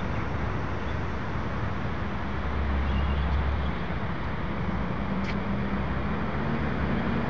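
Steady road traffic noise, an even roar with a low hum underneath.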